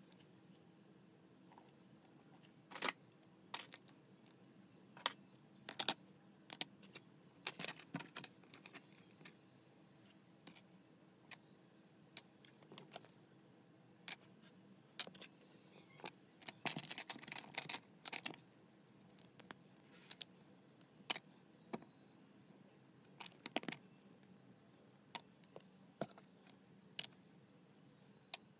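LEGO bricks clicking and clattering as they are handled and pressed together: scattered sharp plastic clicks, with a longer rattling clatter a little past halfway.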